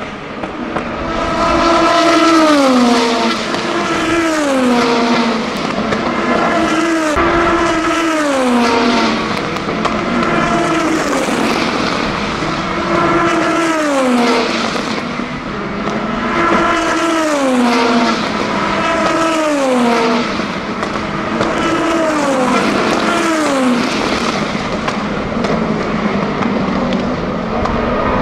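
A string of race cars going past at speed, a new one every second or two, each engine note falling in pitch as it goes by. The cars include Oreca 07 LMP2 prototypes with the naturally aspirated 4.2-litre Gibson V8.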